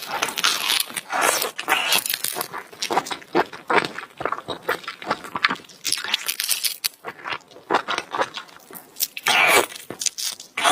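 Close-miked eating: chewing and crunching food, with a fast run of crisp mouth clicks and crackles and a louder stretch about nine seconds in.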